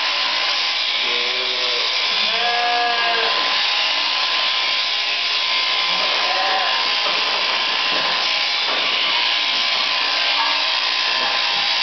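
Electric sheep-shearing handpiece on its drive shaft running steadily as it cuts through the fleece: a constant buzzing hiss with a steady high tone running through it.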